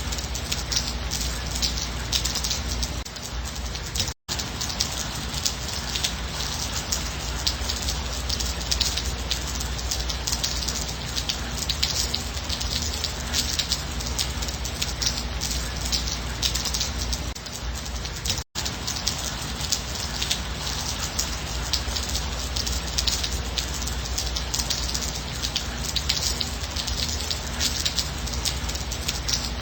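Steady gentle rain, a dense patter of drops on a surface with a low steady rumble underneath. The sound cuts out for an instant twice, about four seconds in and again about eighteen seconds in.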